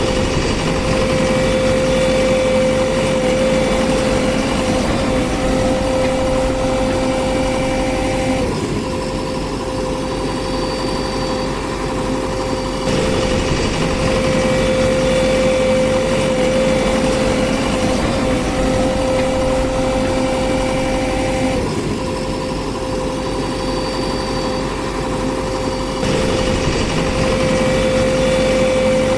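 A steady engine-like running sound with a constant whine. Its texture shifts in a pattern that repeats about every thirteen seconds, like a looped engine sound.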